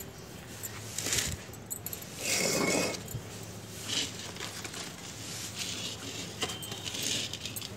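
Money plant (pothos) leaves and stems rustling as the plants are handled during pruning, with scattered light clicks and jingles; the loudest rustle comes about two and a half seconds in.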